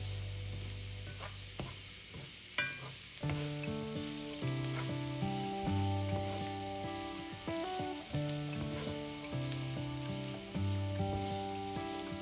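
Food sizzling as it fries in oil in a pan, a steady crackling hiss, with instrumental background music of held notes and a slow bass line playing over it.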